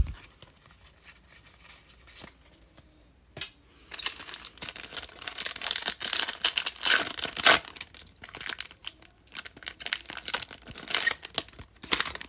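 Foil trading card pack wrapper being torn open and crinkled, starting about four seconds in after a few soft handling clicks.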